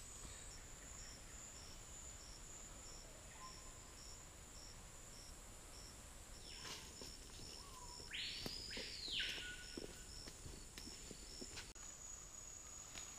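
Faint rainforest insect chorus: a steady high drone with a high chirp pulsing about twice a second. About eight seconds in, a single louder call sweeps up and falls back.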